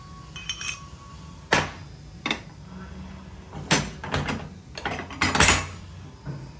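Steel parts of a downhole running tool knocking and clanking as they are handled, with the tool body clamped in a pipe vise. A few sharp metal knocks come in the first half, and a quicker run of them comes in the second.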